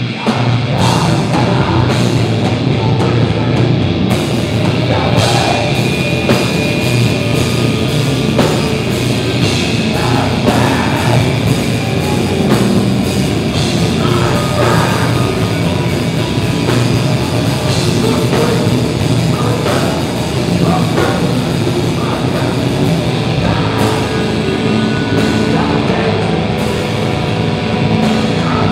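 A live hardcore band playing at full volume: distorted electric guitars and bass over a pounding drum kit, with a vocalist screaming into the microphone.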